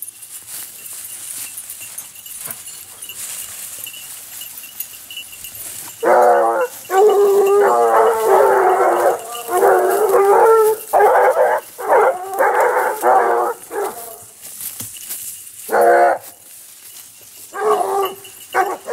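Basset Bleu de Gascogne hounds giving tongue, baying in long drawn-out calls while working a scent. After a quieter start, the cry comes in a sustained run for several seconds, then in shorter calls near the end.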